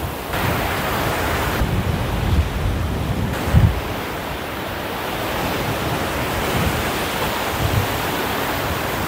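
Surf breaking on a sandy shore with strong wind buffeting the microphone in low gusty rumbles, one gust louder about three and a half seconds in.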